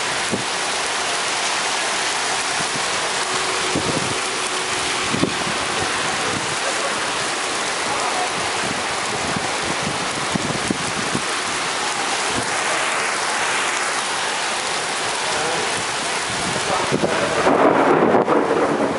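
Cloudburst rain falling heavily and steadily on a wet street and pavement, with scattered close drips and splashes. The noise swells louder for a second or two near the end.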